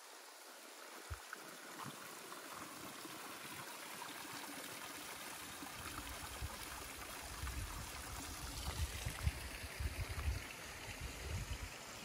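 Steady splashing of spring water pouring from a mossy rock outlet, with irregular low rumbles from about halfway through.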